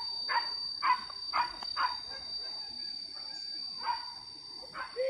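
Hunting dogs barking on a wild boar hunt: a quick run of barks about two a second, a pause, then a few more barks near the end. A steady high insect drone runs underneath.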